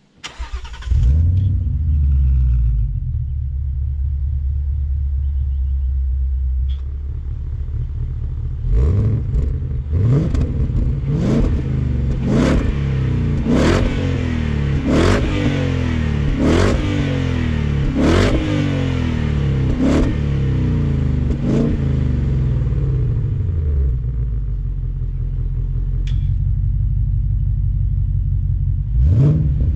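The 2020 Ford Mustang R-SPEC's supercharged 5.0-litre V8 starts up about a second in and settles into a steady idle. It is then blipped about ten times in a row, each rev rising sharply and falling back. It returns to idle, with one more rev near the end.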